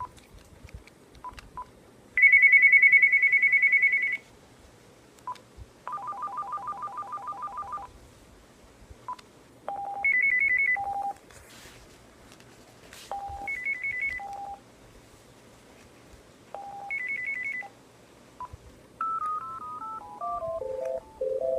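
Uniden DECT 6.0 1580 cordless phone handset playing its built-in ringtones one after another, with short single beeps between them. First comes a high trill, then a lower pulsing two-tone ring, then a beep pattern repeated three times; near the end a descending electronic tune begins.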